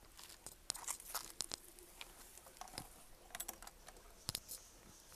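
Footsteps crunching on a gravel and dry-leaf trail: irregular crunches and clicks, with clusters about a second in, past the three-second mark and again near four and a half seconds.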